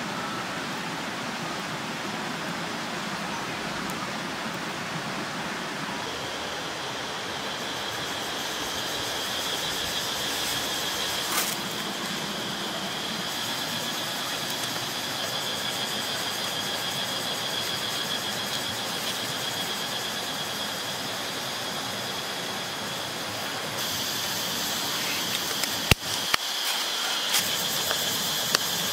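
Steady hissing background noise, with a high, even whine joining about six seconds in and a few sharp clicks near the end.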